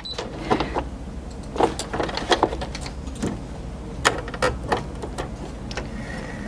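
Irregular small clicks and knocks of hands handling a Brother A150 sewing machine's needle and thread guides while pulling out and rethreading the thread, over a low steady hum.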